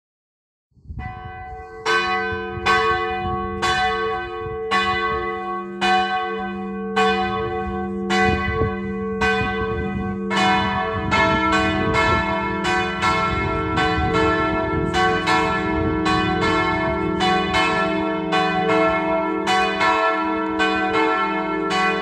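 Swinging church bells of a Slovenian parish church, three bells cast in 1929 in Ljubljana and tuned C♯, E and F♯, ringing. One bell starts about a second in and strikes roughly every 0.7 s, and a second bell joins about ten seconds in, the strokes overlapping with a long humming ring.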